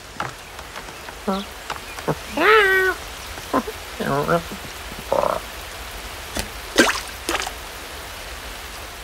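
Cartoon animal vocal effects: a few short pitched calls and croaks. The longest and loudest comes about two and a half seconds in and falls in pitch before levelling off. A few sharp clicks follow near the end.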